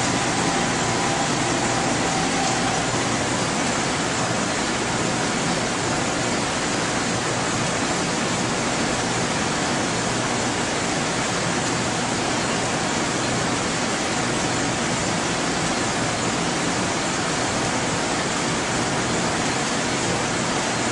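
Steady rushing noise of ventilation and equipment cooling fans, even and unbroken, with faint steady tones in the first few seconds.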